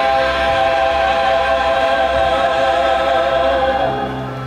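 A group of singers singing a Christmas song in harmony, holding a long chord with vibrato that fades near the end.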